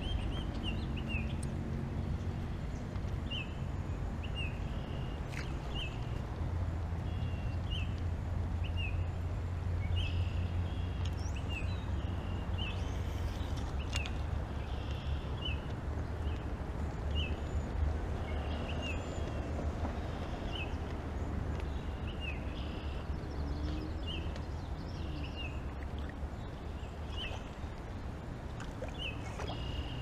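A bird chirping over and over, short high chirps about once or twice a second, over a steady low rumble.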